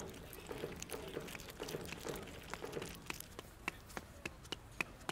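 A run of soft, dull thuds about twice a second. About three seconds in it gives way to sharp, evenly spaced clicks, about three to four a second.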